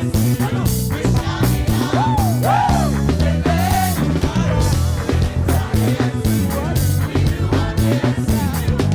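Live gospel praise band playing an upbeat groove with drums, bass guitar and guitar, with a few sliding melodic phrases about two to four seconds in.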